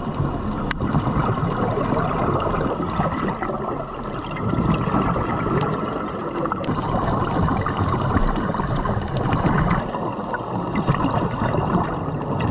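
Water washing and gurgling, with a few faint clicks.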